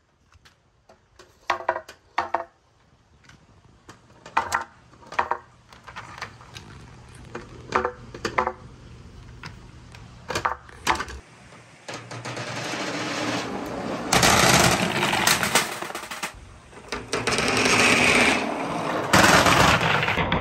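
Billiard balls clacking as they are handled and dropped into a clear plastic tube: separate sharp knocks, each with a brief ring. From about twelve seconds in, a continuous rolling clatter builds and grows loud as a batch of billiard balls rolls down a wooden track over a perforated board.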